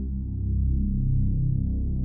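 Dark ambient space music: deep synthesizer drones and low pads that swell slowly, with a faint pulsing texture.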